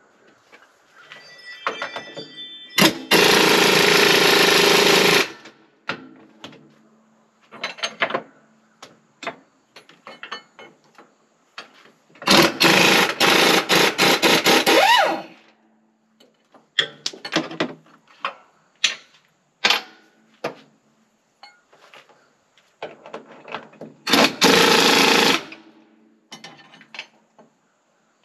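Impact wrench running on a bolt in three runs of two to three seconds each, about three, twelve and twenty-four seconds in, working the engine mount's bottom bolt loose. Between the runs come sharp clinks and knocks of metal tools.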